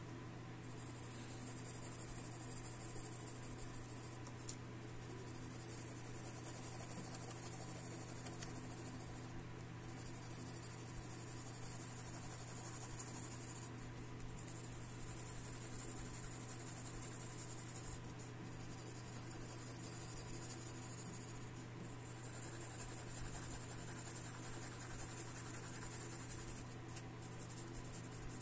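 Graphite pencil shading on paper: scratchy hatching strokes that stop briefly every few seconds as the pencil lifts. A steady low hum runs underneath.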